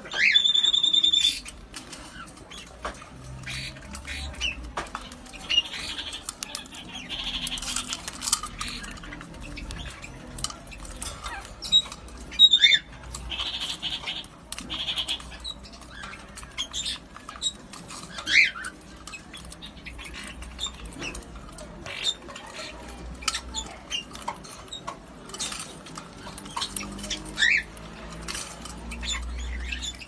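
Caged kakariki parakeets: one loud squawking call at the start, then a few short chirps spread through, over the pecking, clicking and scraping of their beaks in a plastic seed dish as they eat.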